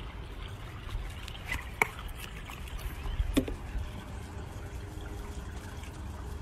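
Swimming-pool water lapping and trickling as a large dog stands and moves in the water, over a low steady rumble. Two short sharp knocks come about two and three seconds in.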